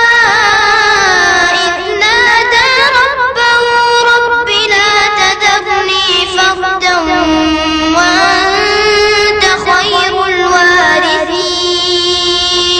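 A child's voice reciting the Quran in the melodic tilawah style, drawing out long held notes that bend and turn in pitch, with short breaths between phrases.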